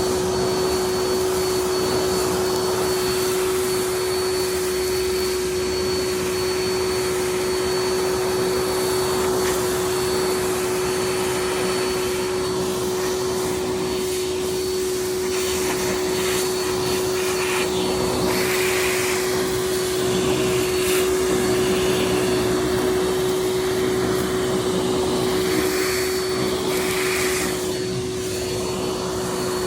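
Vacuum cleaner running steadily with a constant hum and a faint high whine. Its sound shifts a little from about halfway through as it sucks things up.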